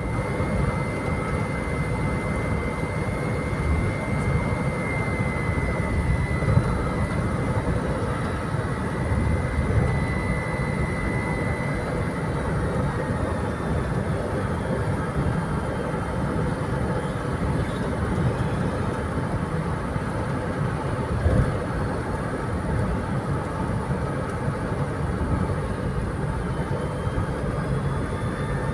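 2004 Ford Everest automatic's turbo-intercooled diesel engine pulling steadily at highway cruise, heard from inside the cabin along with road noise. A faint high whistle sits over it for about the first twelve seconds, then fades.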